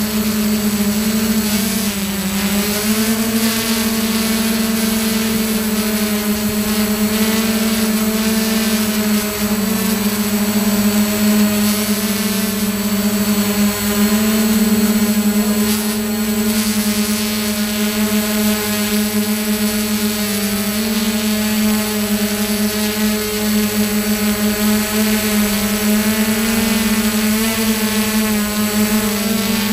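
Drone's electric motors and propellers whining at a steady, held pitch, recorded by the camera on the drone, with a brief dip in pitch about two seconds in.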